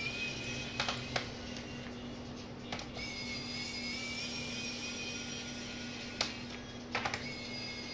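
Pen-style electric screwdriver whining steadily as it backs out a laptop's bottom-case screws. It runs briefly at first, then again from about three seconds in for several seconds. Small clicks come from the bit and tool against the plastic case.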